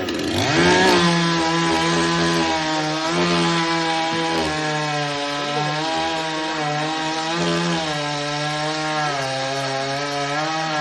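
Chainsaw cutting wood: the engine revs up in the first second and holds at high speed. Its pitch sags slightly several times as the chain bites.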